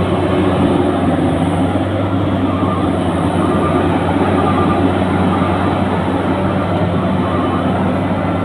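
Combine harvester running steadily, its engine and threshing machinery making a constant loud drone with a deep hum underneath.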